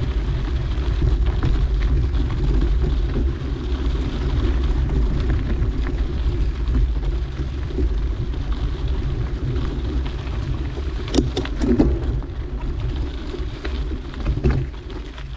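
Mountain bike rolling along a dirt trail: a steady low rumble of tyres and wind on the microphone, with a few sharp clatters about eleven seconds in.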